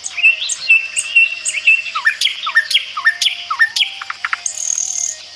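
Several birds chirping and calling together: quick repeated rising whistles, short high chirps and twittering, with a thin high trill near the end.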